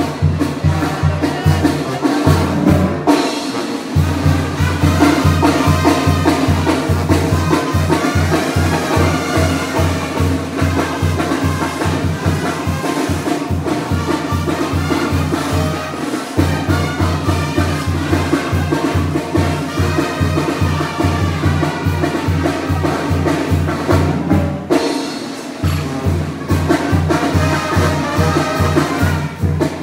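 Tamborazo brass band playing: trumpets and trombones over a steady, loud bass-drum beat. The low beat drops out briefly about three seconds in and again about 25 seconds in.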